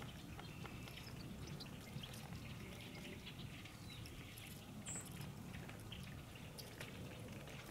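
Faint outdoor marsh ambience: a low steady rumble with scattered soft ticks and rustles, and a couple of brief high chirps about halfway through.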